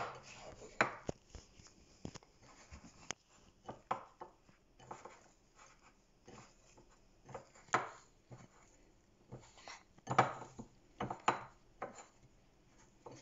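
Hands kneading soft wheat-flour chapati dough in a plate: irregular soft taps and knocks of fingers and dough against the plate, with a few louder brief scrapes and squishes near the end.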